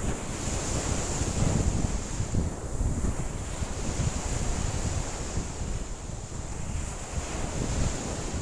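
Wind-driven lake waves washing in, with strong wind gusting over the microphone as a low rumble.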